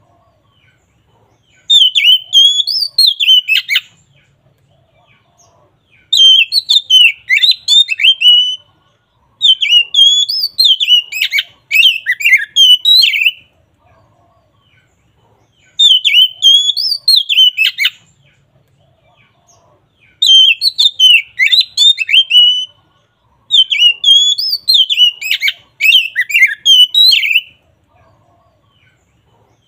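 Oriental magpie-robin (kacer) singing its loud full song, in phrases of rapid, sweeping whistled notes two to four seconds long, about six of them, separated by short pauses.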